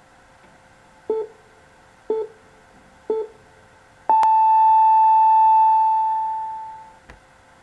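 Japanese radio time signal in the NHK style: three short low pips a second apart, then a long pip an octave higher that holds and fades out over about three seconds, marking the top of the hour.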